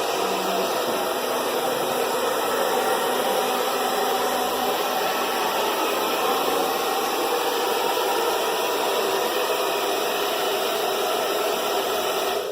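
Hair dryer blowing steadily, an even rushing hiss that cuts off suddenly near the end.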